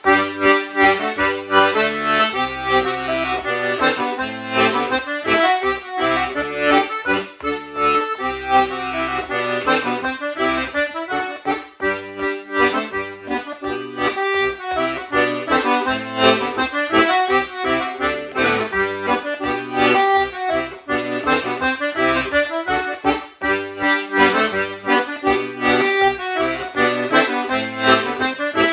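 Solo melodeon (diatonic button accordion) playing a schottische: a quick melody on the treble buttons over separate, evenly recurring bass notes.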